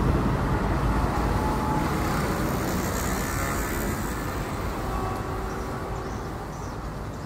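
Passenger train rolling away along the track, its wheels rumbling on the rails and fading steadily as it recedes.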